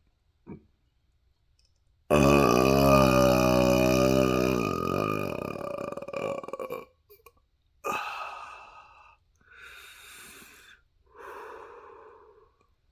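A long, loud, deep burp lasting about four and a half seconds, wavering in pitch. It is followed by a few shorter, breathier sounds.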